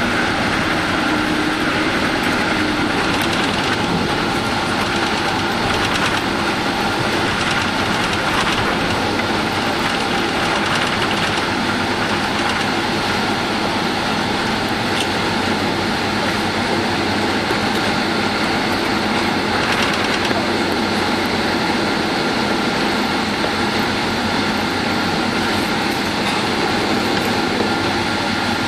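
Steady cabin noise inside a Boeing 767-300ER slowing after landing and rolling off the runway: engine hum and rushing air at an even level, with a few faint steady tones.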